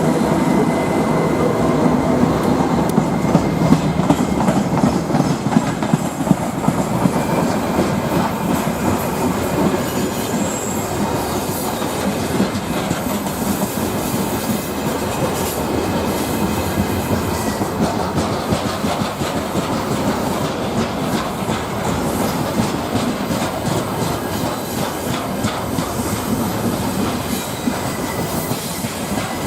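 Freight train wagons rolling past at speed: a steady rumble with rapid clickety-clack of wheels over rail joints. A thin steady squeal fades out in the first few seconds.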